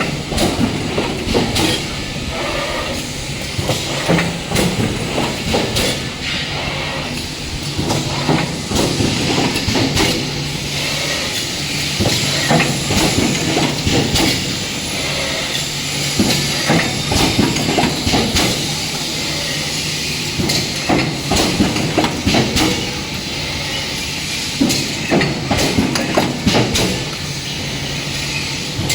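Pneumatic punch presses on an automated stamping line working, with repeated sharp strikes and clanks and bursts of air hiss over a steady machine hum.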